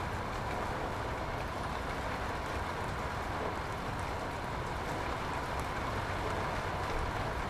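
Steady background rumble and hiss with a few faint small clicks.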